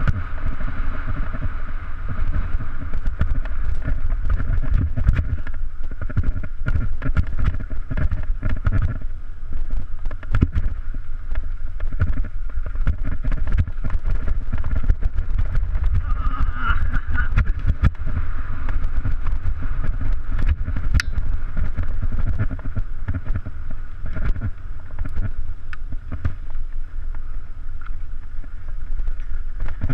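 Wind buffeting a GoPro action camera's microphone as a mountain bike rides downhill on a dirt trail. Tyre noise on dirt runs throughout, with frequent rattles and knocks from the bike over bumps.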